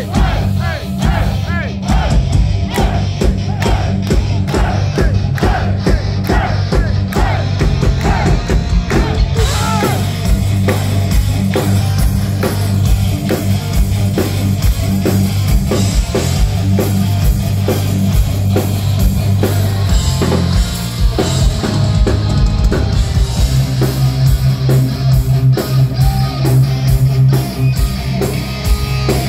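Heavy metal band playing live, heard from the crowd: distorted electric guitars and a drum kit, with a melodic lead line over the first several seconds.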